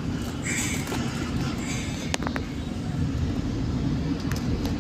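Bus engine running at low speed, heard from inside the cabin as a steady low rumble, with brief hisses about half a second in and again just before two seconds, and a few light clicks a little after.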